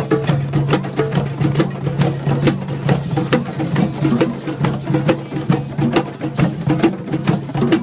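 Drum circle: several hand drums, djembes among them, struck together in a steady, fast rhythm.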